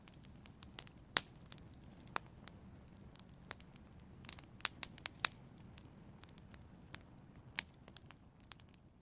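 Wood logs burning in a fireplace: irregular sharp crackles and pops, the loudest about a second in and around five seconds in, over a low steady rumble of the flames.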